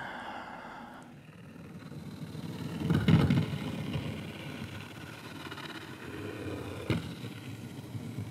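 Low, rumbling engine-like noise with no clear pitch, swelling about three seconds in, and a single sharp knock near the end.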